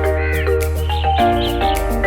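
Background music: an upbeat instrumental track with a steady bass and a regular percussive beat, with pitched melody notes changing about every half second.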